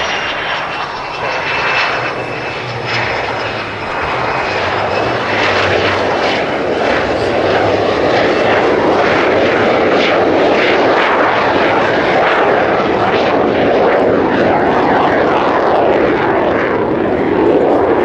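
AMX light attack jet's Rolls-Royce Spey turbofan making a display pass: a loud, steady rushing jet noise with a faint high whine that drops slightly in pitch early on. It grows louder from about four seconds in and swells to its loudest near the end as the jet turns away.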